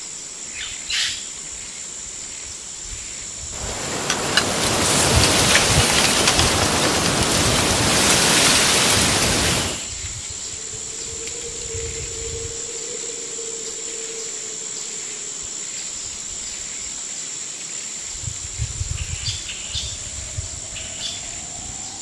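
Outdoor ambience: a steady high-pitched whine, a few bird chirps about a second in and again near the end, and a loud rushing noise that swells up about four seconds in and cuts off about ten seconds in.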